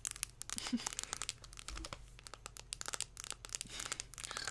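Close-up crinkling and crackling: a rapid, dense run of small clicks as a small object is handled and scratched right against a condenser microphone.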